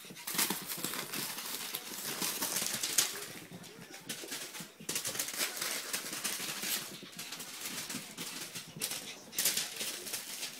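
Pug puppies scampering over sheets of newspaper: rapid paper rustling and crinkling with quick clicks of paws and claws, in uneven bursts with brief lulls.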